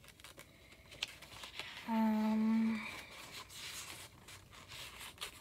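Sketchbook pages being handled and turned, soft paper rustling and light clicks, while searching for a drawing. About two seconds in, a short steady hummed note from a voice, the loudest sound.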